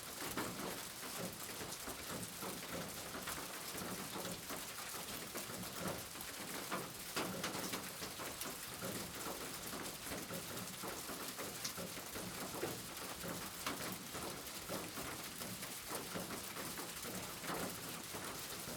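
Steady rain falling, with many individual drops striking close by.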